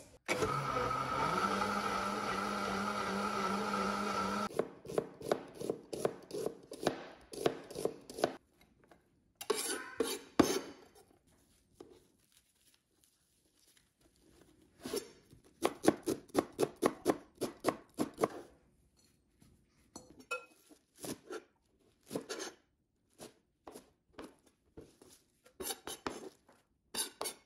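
A Vitamix blender runs for about four seconds with water and a drop of dish soap in its container, to clean itself. Its pitch rises as the motor spins up, and then it cuts off. After that comes a chef's knife chopping in quick runs of strokes on a plastic cutting board, through rolled perilla leaves and garlic chives.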